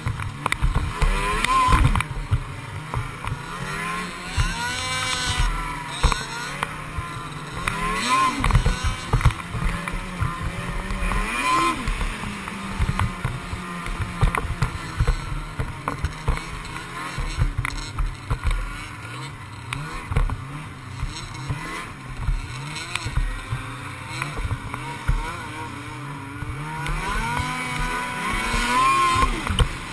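Snowmobile engine heard from the rider's seat while riding, its revs rising and falling several times over rough, rutted snow, with irregular low buffeting on the microphone throughout.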